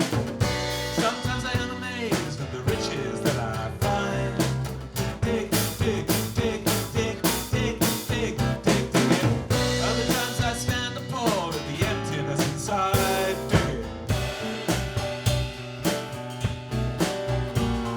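Live band playing an instrumental passage, with a drum kit keeping a steady beat under guitar and other pitched instruments.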